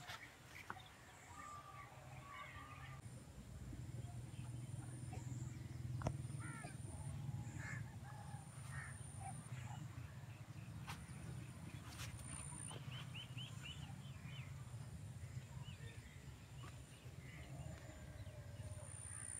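Birds calling now and then, faint, with a quick run of short chirps around the middle, over a steady low rumble and a few sharp clicks.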